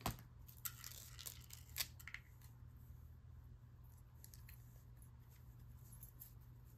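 A few light clicks and taps as small items are set into a small decorative box by hand, mostly in the first two seconds, then only a faint steady low hum.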